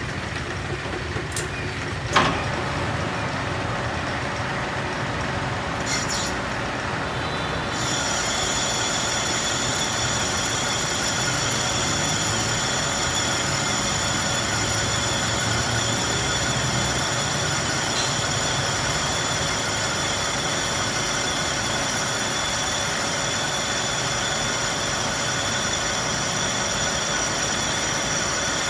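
Metal lathe running with a low hum; a single sharp metallic knock about two seconds in, and from about eight seconds in a steady high-pitched metallic whine joins it and holds.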